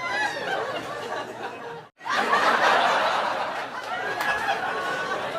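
Several people laughing together, many voices overlapping. About two seconds in the sound cuts out for a moment, then the laughter comes back louder and fades down again.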